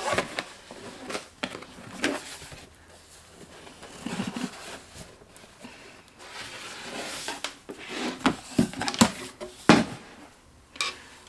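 A cardboard box and a cotton dust bag being handled during unpacking: rustling with scattered taps and knocks, the sharpest knock near the end.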